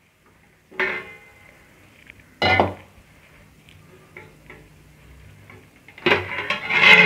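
Stainless steel cookware clinking: two separate metal knocks, the second louder, as a water-filled steel pot is lifted off a kadai lid, then a longer clatter of steel near the end as the cloth-held lid is handled.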